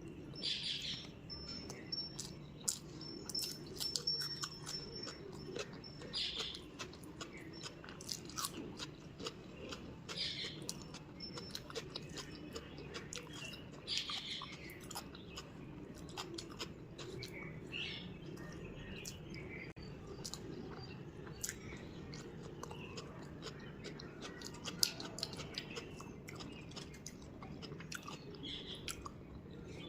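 A person eating up close: wet chewing and crisp crunching bites with many small clicks of mouth and fingers. Birds chirp in the background.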